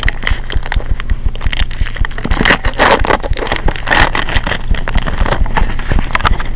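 Crinkling and tearing of a foil Pokémon TCG booster pack wrapper being opened by hand: dense, irregular crackling, busiest in the middle, over a steady low hum.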